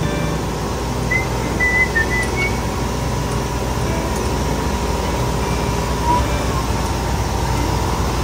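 Car running, a steady low rumble, with a few short high whistled notes about a second in.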